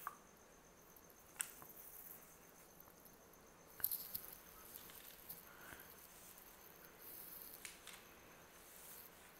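Near silence: room tone with a faint steady high whine and a few soft clicks and rustles.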